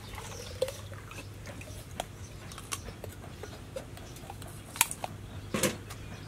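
Cleaver chopping and tapping at the husk of a young coconut: a scattered series of short, sharp cuts, the loudest strikes near the end, over a faint steady low hum.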